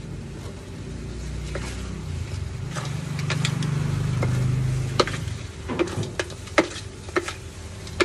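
A wooden spatula stirs and tosses spaghetti and seafood in a hot sizzling pan, with a run of sharp knocks and scrapes against the pan from about three seconds in. A low hum swells in the middle.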